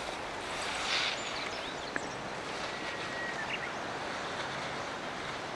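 Steady outdoor hiss with a brief louder swish about a second in, typical of ski edges scraping across hard snow in a slalom turn; a single sharp click near two seconds.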